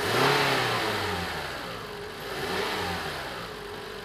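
Toyota Camry four-cylinder engine revved briefly twice, its pitch rising and falling back toward idle. It runs smoothly on a new number 2 ignition coil, the misfire behind code P0352 cured.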